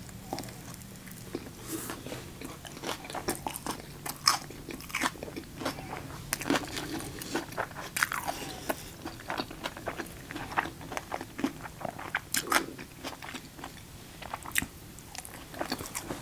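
A person biting and chewing crunchy food right at the microphone, with irregular crunches and crackles throughout.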